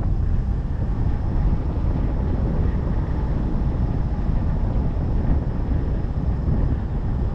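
Steady rush of air over the microphone of a hang glider in fast flight, the pilot pulled in for speed.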